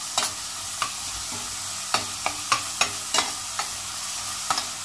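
Grated carrots and onion sizzling in olive oil in a stainless steel saucepan while a metal spoon stirs them, with repeated sharp clicks as the spoon knocks against the pan.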